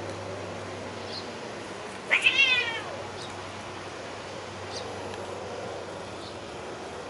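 A tabby cat gives one loud, wavering yowl of just under a second, about two seconds in, its pitch sagging at the end. It is the cry of a cat in a confrontation, with one cat pinning the other, who lies on her back.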